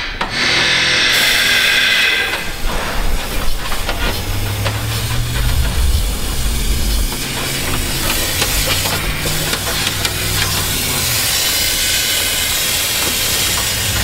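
Compressed-air undercoating spray gun with a siphon cup fogging oil rust-proofer: a loud, steady hiss of air and oil mist, wavering as the trigger and nozzle are worked. A low hum sits underneath from about four seconds in.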